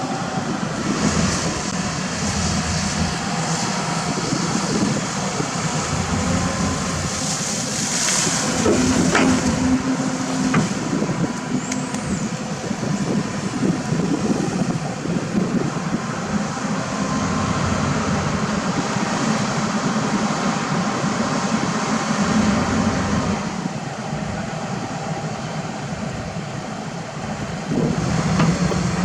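Diesel engines of heavy earthmoving machinery (excavators and dump trucks) running steadily under work, with a burst of hiss about eight seconds in and a few short metallic clanks and a squeal soon after.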